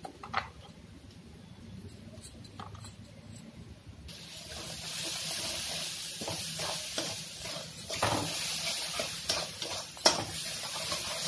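Spice paste frying in hot mustard oil in a kadhai while a metal spoon stirs it. There are a few light spoon clicks, then a steady sizzle from about four seconds in, with the spoon scraping and tapping against the pan.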